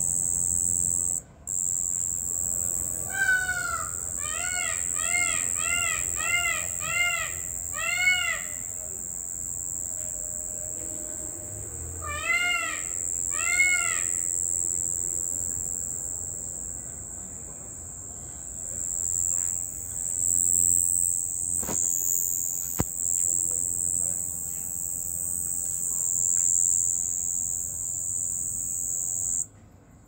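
Crickets trilling in a steady, high-pitched chorus that cuts off just before the end. Over it come short rising-and-falling calls from another animal: about nine in quick succession a few seconds in, and three more a little later.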